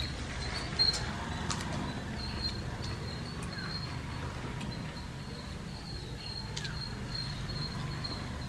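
Wet chewing and mouth clicks of people eating rice and curry by hand, with a sharp click about a second in. Under it run a steady low hum and a continuous high-pitched warbling chirp.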